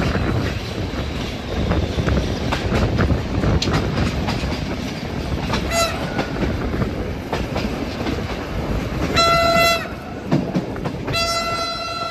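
Train rolling past with its wheels clattering over the rail joints. Its single-note horn sounds three times: a brief toot about six seconds in, a short blast about nine seconds in, and a longer blast starting near the end.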